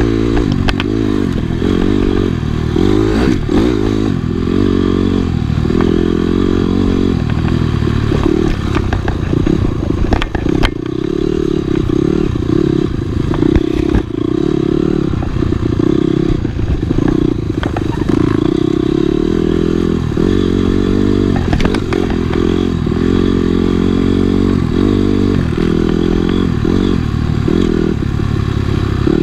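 Dirt bike engine running on a trail ride, its pitch rising and falling constantly as the throttle is worked, with occasional knocks and clatter from the bike over rough ground.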